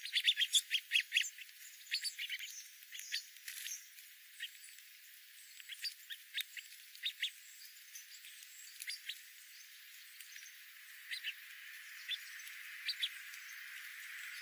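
Small birds chirping: a quick run of short, high chirps at the start, then scattered single chirps and pairs.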